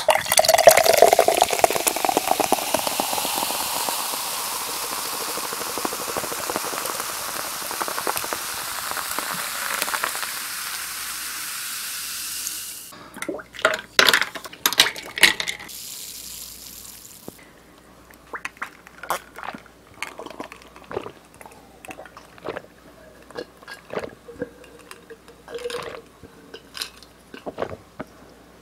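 A can of Coca-Cola is cracked open and the cola poured into a glass, fizzing loudly for about 13 seconds. Ice cubes then drop in with a few sharp clinks, and the fizz dies away. Near the end there are quiet, scattered small sounds as she drinks.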